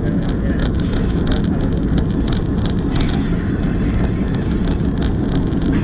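Locomotive running along the track: a steady low rumble with a scatter of light clicks and rattles, and wind on the microphone.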